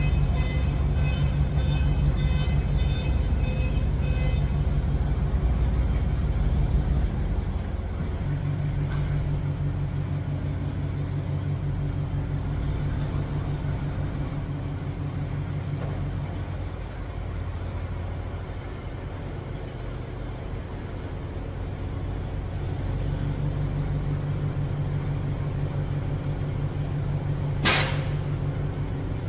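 An engine running steadily with a low rumble that eases off for a while and then picks up again, and a brief sharp sound near the end.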